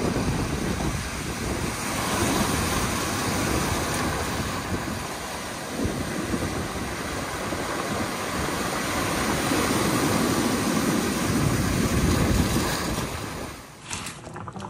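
Surf breaking and washing over a beach of rounded black volcanic stones, with wind on the microphone. The rushing swells and eases with each wave. Near the end it cuts off, and a few sharp clicks follow.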